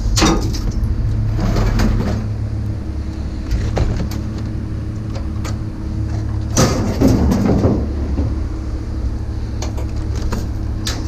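Vehicle engine running steadily, with knocks and rattles near the start and a longer clatter about seven seconds in.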